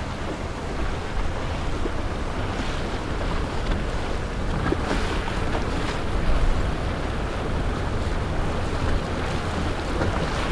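Steady rush of water and a boat's motor rumbling as it runs across the water, with wind buffeting the microphone.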